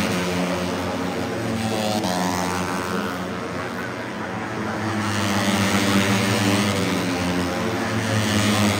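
Moto3 racing motorcycles' 250 cc single-cylinder four-stroke engines running at high revs around the circuit. Their pitch rises and falls as bikes pass and shift, over a steady low drone.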